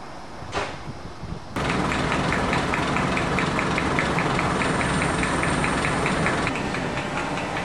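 Class 67 diesel locomotive's two-stroke V12 engine running steadily, a low drone with a quick regular clatter, several beats a second. It comes in suddenly about one and a half seconds in, after quieter station background with one short noise.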